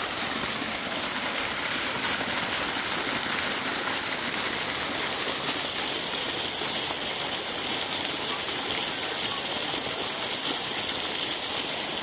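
Steady rushing of a waterfall's falling water, an even hiss without breaks.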